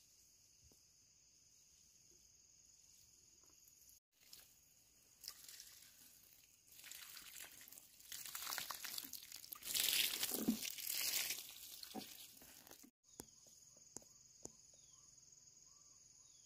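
Insects chirring steadily, then a stretch of rustling, crunching noise that builds to its loudest about ten seconds in and stops abruptly, before the insect chirring returns.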